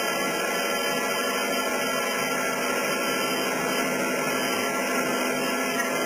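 Old belt-driven sawmill machinery running steadily, powered by a historic electric motor. Drive belts and saw gear keep up a continuous mechanical din.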